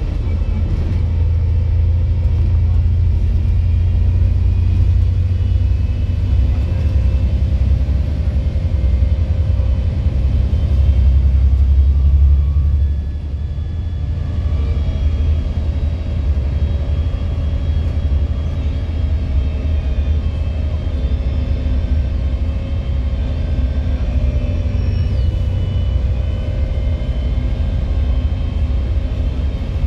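Volvo B7 double-decker bus heard from the upper deck while under way: a deep engine rumble that builds, then drops back about halfway through. A steady whine runs over the rumble.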